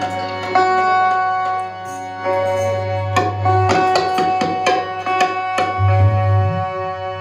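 Live folk music: a harmonium holds steady reed notes while a dholak-style barrel hand-drum plays quick strokes, busiest in the middle of the passage.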